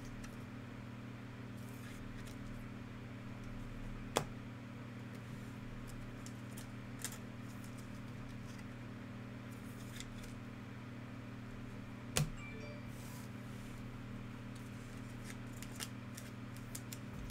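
Trading cards handled and sorted by hand: soft sliding rustles and scattered light clicks of card stock, with two sharper clicks about four and twelve seconds in, over a steady low hum.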